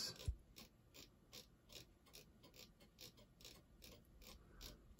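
Faint, even clicking, about three clicks a second, from scrolling rapidly down through code on a computer.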